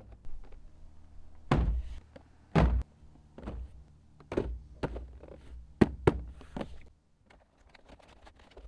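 A series of separate thuds and knocks: two heavy, deep thuds a little over a second apart, then lighter knocks and two sharp clacks, stopping about seven seconds in.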